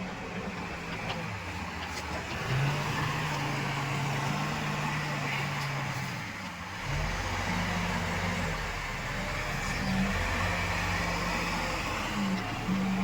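Heavy diesel engine running under load, its pitch stepping up and down as it revs, with a deeper rumble coming in about seven seconds in.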